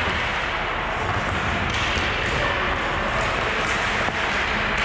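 Ice hockey play in an arena: a steady hiss of skate blades on the ice with general rink noise, and a few light clicks of sticks and puck.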